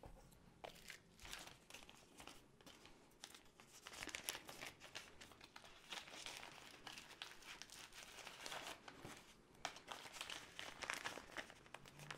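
Faint crinkling of a thin plastic zip bag as it is handled and opened, a quick run of small crackles that grows busier in the middle and later part.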